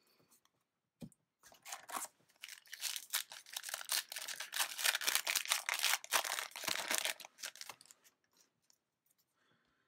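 Yu-Gi-Oh! booster pack being torn open, its foil wrapper tearing and crinkling in a dense run lasting about six seconds, after a single click about a second in.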